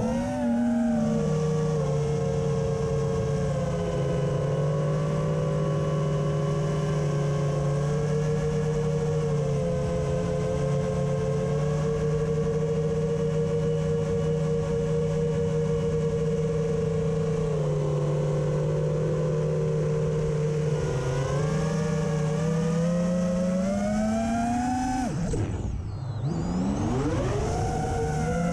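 FPV quadcopter's brushless motors and propellers whining at a fairly steady pitch, several slightly different tones together. The pitch climbs a little from about 21 seconds in, drops sharply about 25 seconds in, then rises again.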